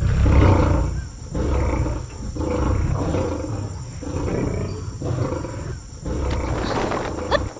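Tigers roaring over and over, about six rough, deep roars in a row, each a second or so long.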